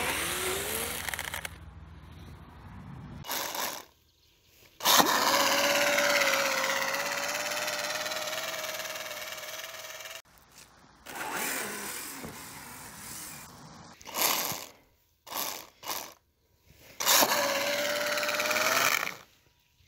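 Brushless electric motor of a radio-controlled snowmobile whining as it drives its track through deep snow, heard in several short clips cut together. The whine climbs as the motor spins up and holds a steady pitch for several seconds in the middle.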